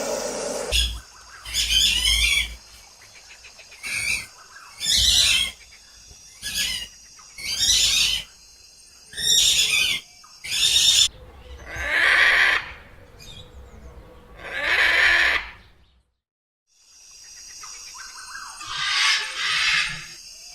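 Birds calling: a run of short, high, warbling calls repeated about once a second, then two longer, lower calls, and after a brief break a steady hiss with further calls.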